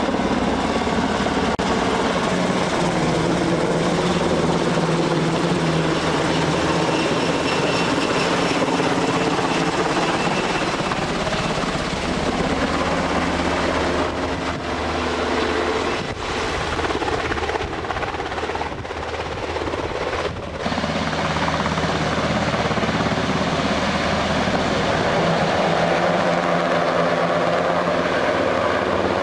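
Helicopter flying low, its rotor and engine running steadily, with a few brief dips in the sound around the middle.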